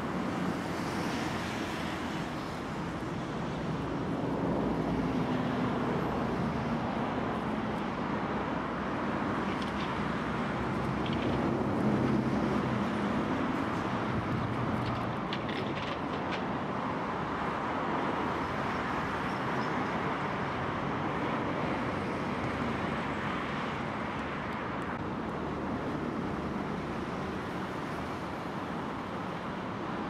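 Steady rumble of distant road traffic, with a vehicle passing by a few seconds in and again near the middle, its pitch sliding down as it goes.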